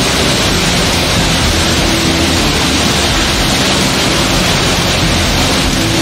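Large waterfall: a loud, steady rush of falling water crashing onto rocks.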